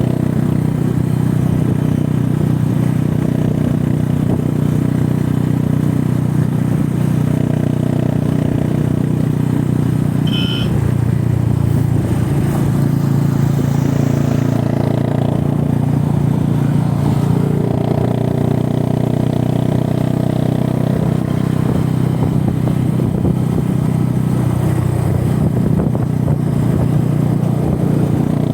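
Motorcycle engine running steadily at a low, even speed, its pitch shifting slightly about ten seconds in, with a brief high chirp at about the same moment.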